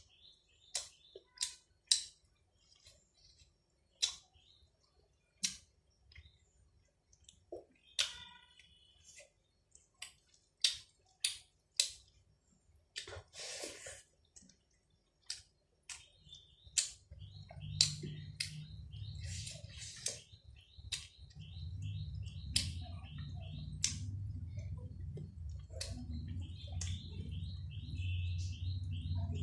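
Close eating sounds: sharp mouth clicks and lip smacks from chewing food by hand, over birds chirping in the background. A low rumble comes in a little past halfway and grows towards the end.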